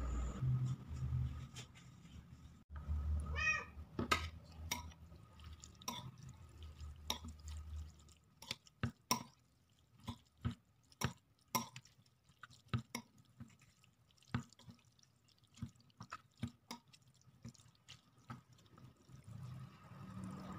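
Metal spoon and fork clinking and tapping against a ceramic bowl while tossing instant noodles in their sauce: a string of sharp, irregular taps, thickest between about four and twelve seconds in.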